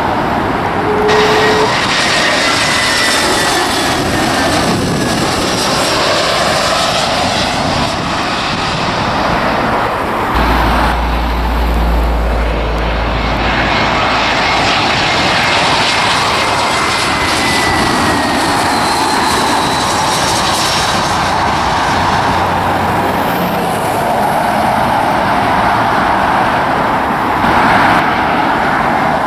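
Jet airliner engines, heard across several spliced clips of aircraft on approach and climbing out: a steady rushing noise with faint whines that slowly fall in pitch, and a heavy low rumble for a few seconds near the middle.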